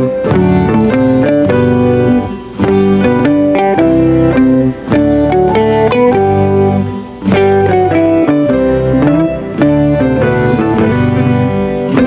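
Background music: a melody played on plucked guitar, with brief pauses between phrases.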